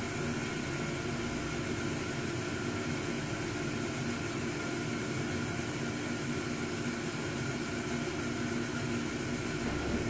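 Ground-fog machine and its blower running, a steady mechanical hum with a hiss and a few constant tones, as the fog is pushed out through the duct.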